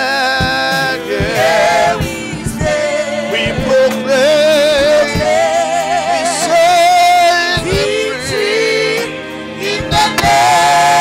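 Gospel song: singing with wide vibrato on long held notes.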